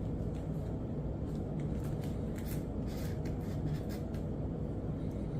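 Knife cutting and sawing into a mangosteen's thick, hard rind, heard as faint scattered scrapes and clicks over a steady low hum.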